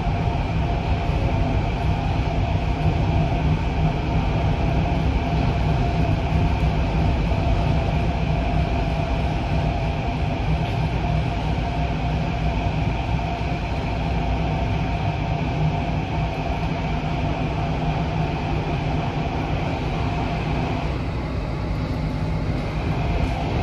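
Cabin noise of an SMRT CT251 Thomson–East Coast Line metro train running in service: a steady low rumble of wheels on rail with a constant hum. About three seconds before the end the higher hiss drops back and the tone shifts.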